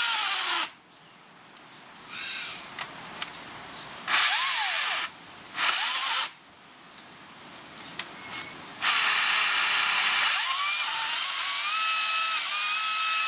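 Makita 40V top-handle battery chainsaw plunge-cutting into a small tree trunk. It cuts in three short bursts, its motor whine falling away as it stops between them, then runs in one long steady cut from about nine seconds in, the pitch of its whine climbing near the end. The stops come as the chain jams, which the owner puts down to it catching on a stick as the bar came out the other side.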